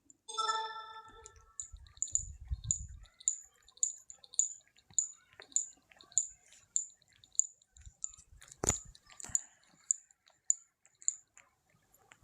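Domestic cat grooming itself close to the microphone: wet licking clicks repeating about twice a second. A brief vocal sound comes just at the start, and a single sharp knock about two-thirds of the way through.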